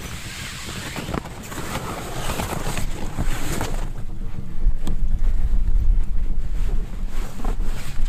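Strong wind gusting, with a haze of rushing noise in the first half, then buffeting the microphone with a deep rumble from about halfway through.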